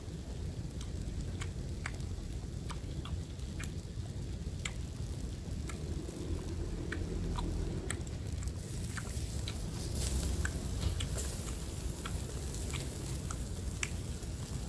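Close-up chewing of a piece of grilled pig tongue, with scattered sharp clicks, over the faint sizzle of a charcoal grill.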